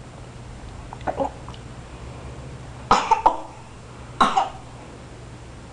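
A person coughing: a short cluster of coughs about three seconds in and one more cough just past four seconds, with a fainter small sound about a second in.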